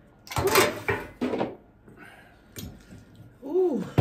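Someone slurping spicy instant noodles: a few quick wet slurps in the first second and a half, then a short hummed "mm" that rises and falls in pitch near the end.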